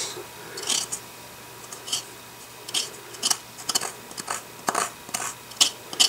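Metal teaspoon scraping dry kief powder from the inside of a plastic coffee grinder lid in short, light strokes, about two a second.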